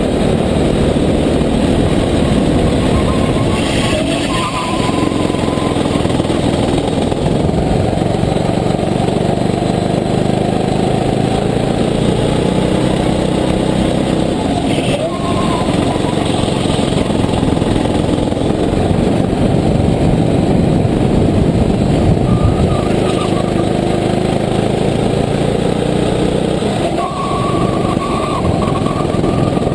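Sodi rental kart's engine running hard, heard onboard from the driver's seat, easing off briefly about three times as the kart takes corners.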